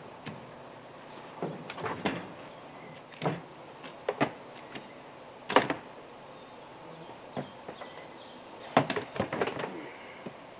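Irregular knocks and clunks, about ten separate hits scattered over several seconds, the loudest a little past the middle and a cluster near the end.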